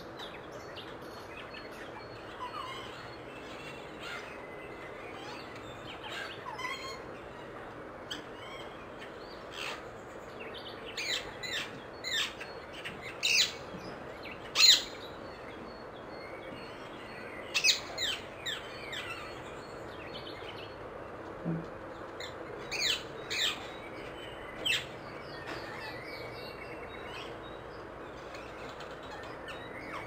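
Rose-ringed parakeet calling: short, sharp, high-pitched calls that drop in pitch, coming in clusters from about a third of the way in, the loudest near the middle, over steady background noise.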